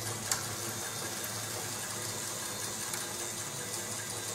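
Small low-geared electric motor running steadily as it drives the Meccano crawler tractor's winch through its metal and plastic gearing, with a single click about a third of a second in.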